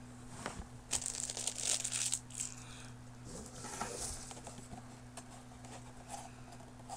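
Packaging crinkling and rustling as it is handled: a dense burst lasting about a second and a half, starting about a second in, then softer rustles and a few light clicks.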